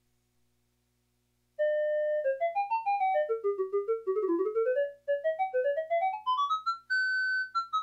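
Yamaha PS-6100 keyboard playing a fast single-note melody in a clear, simple tone: rapid runs falling and then climbing, a short break or two, and a held high note near the end. The keyboard starts playing about a second and a half in, after silence.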